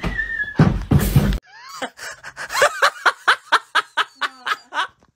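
A hose spray nozzle spraying water cuts off sharply after about a second and a half. Then comes a quick run of short, pitched vocal calls, about four a second, each bending up and down in pitch.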